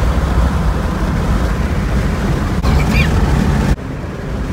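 Infiniti G35 coupe's 3.5-litre V6 running through a Motordyne Art Pipes and Shockwave exhaust, heard from inside the car on the move: a loud, deep exhaust rumble. About three and a half seconds in, it cuts abruptly to a quieter, steady cruising drone.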